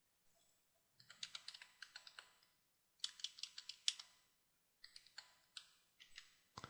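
Computer keyboard typing: two quick runs of keystrokes, about a second in and again around three seconds in, then a few scattered clicks.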